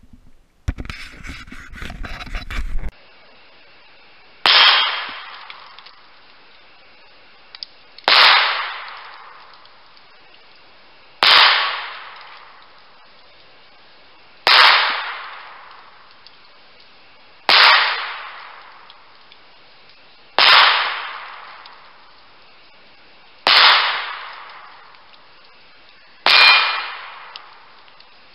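Eight .22 rimfire pistol shots about three seconds apart, each a sharp crack followed at once by a steel target ringing out and fading over about a second and a half. Opens with about two seconds of rough noise before the first hit.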